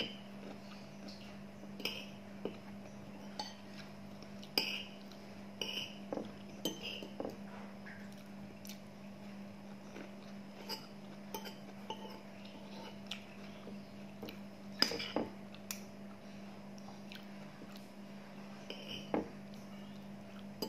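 Stainless steel spoon and fork clinking and scraping against a ceramic bowl: irregular sharp clinks every second or so, the loudest about 15 seconds in. A steady low hum runs underneath.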